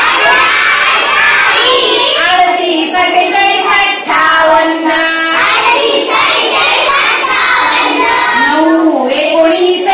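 A young schoolgirl singing a Marathi counting song in a sing-song chant, reciting numbers across the rows of a 1-to-60 chart.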